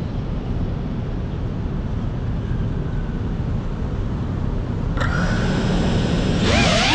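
FPV drone's motors and propellers heard through its on-board GoPro: a low rumbling hiss at first, then about five seconds in a steady multi-tone motor whine comes in. Near the end the whine rises sharply in pitch and grows louder as the throttle is opened.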